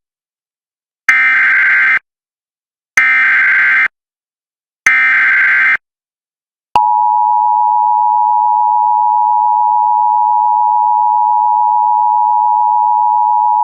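Emergency Alert System signal: three SAME header data bursts of buzzy digital noise, each about a second long with a second of silence between them, then the steady two-tone EAS attention signal starting about seven seconds in. Together they mark the start of a new alert, here a flash flood warning.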